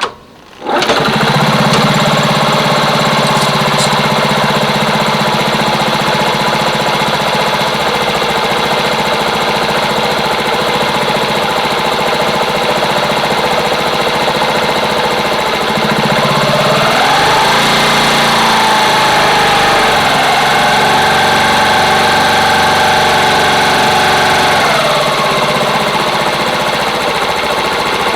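Honda Super Cub 50's small single-cylinder four-stroke engine starting about a second in and idling steadily, then revved up and held at higher speed for about eight seconds before dropping back to idle. It runs cleanly with no abnormal noise: a healthy engine.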